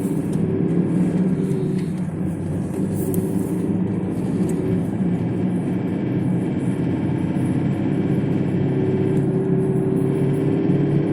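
Mitsubishi Pajero Sport's 3.2-litre 4M41 four-cylinder diesel running steadily with a knock that the owner puts down to the fuel injectors.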